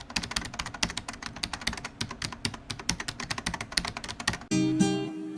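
Rapid, irregular key clicks of keyboard typing. Acoustic guitar music starts about four and a half seconds in.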